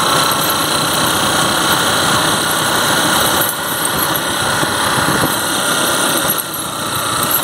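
A small motorcycle's engine running as the bike rides along, mixed with a steady rushing noise; the sound dips briefly twice, about halfway through and near the end.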